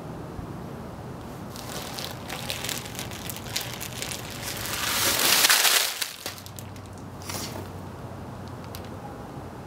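Dozens of small plastic fruit-snack pouches crinkling in a cloth bag as it is lifted and shaken out, swelling to a loud rush of crinkling about five seconds in that stops suddenly, then a brief rustle a little later.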